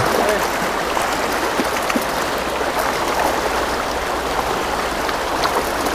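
Steady rush of a fast, shallow river running over stones and rocks in a riffle.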